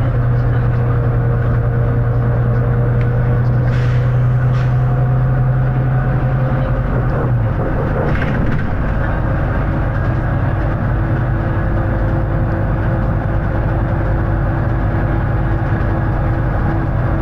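Volvo B9TL double-decker bus's six-cylinder diesel engine running under way: a loud, steady drone whose deep note changes about seven and a half seconds in, with a few faint short clicks.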